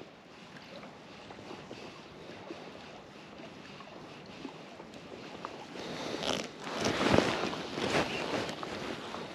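Wind noise on the microphone; about six seconds in, louder crunching footsteps begin, roughly one a second.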